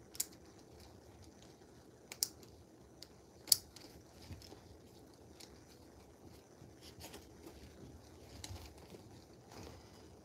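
Hands handling the hardware and straps of a dog mobility harness: sharp clicks near the start, about two seconds in and, loudest, about three and a half seconds in, then softer scattered ticks and rustles.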